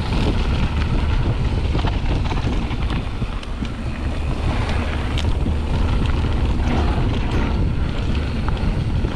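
Mountain bike rolling fast down a gravel trail: a steady rumble of tyres on gravel, wind noise on the microphone, and scattered clicks and rattles from the bike.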